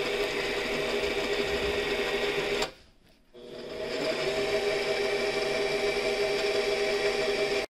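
Masterflex 7550-60 computerized peristaltic pump drive running, its motor and quick-load roller head giving a steady whine. About two and a half seconds in it stops for about half a second, then starts again, its pitch rising as it comes up to speed before running steadily.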